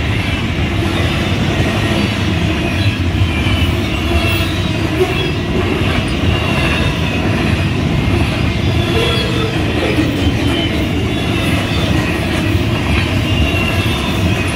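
Union Pacific intermodal freight train passing close by, its steel wheels rolling over the rails in a loud, steady rumble. Faint high-pitched wheel squeals come and go over it.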